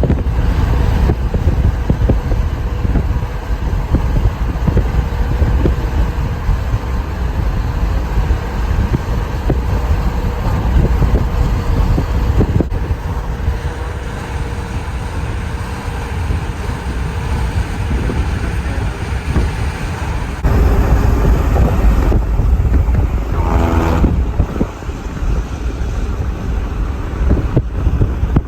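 Severe thunderstorm winds gusting hard, buffeting the microphone with a continuous low rumble. A brief pitched tone sounds about three-quarters of the way through.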